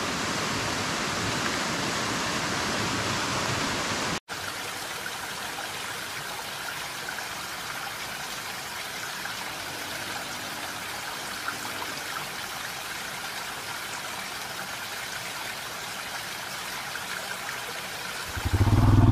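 Rushing water of a hillside waterfall, a steady even hiss. It breaks off abruptly about four seconds in and resumes a little quieter. Near the end a motorcycle engine comes in loudly.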